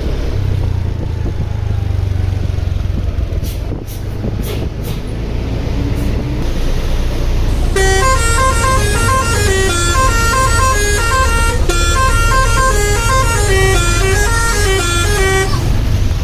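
Bus engine rumbling, then about halfway through a telolet (basuri) multi-tone bus horn plays a quick melody of rapidly changing notes for roughly eight seconds before stopping.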